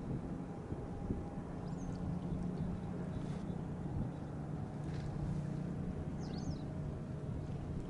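Boat engine idling with a steady low hum. A few short, high bird calls are heard faintly over it.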